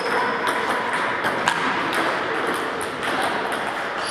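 Table tennis balls clicking off bats and tables in a rally, with quick irregular clicks from several tables playing at once.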